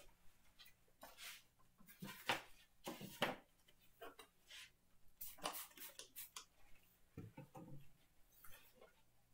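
Several short hisses from a Windex trigger spray bottle, wetting wet/dry sandpaper glued to a board to lubricate it for lapping a plane sole. Faint low knocks near the end.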